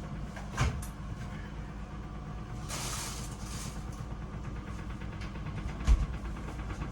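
Kitchen handling sounds while a chicken wrap is put together: a knock, a brief rustle, and a sharper thump near the end, over a steady low hum.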